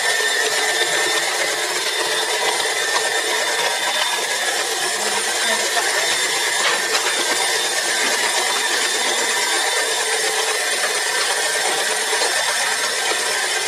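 Electric mixer running steadily at a constant speed, beating butter to cream it for icing.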